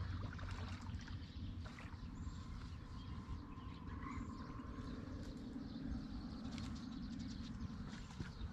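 Outdoor riverbank ambience: a low steady rumble with faint bird chirps scattered through it.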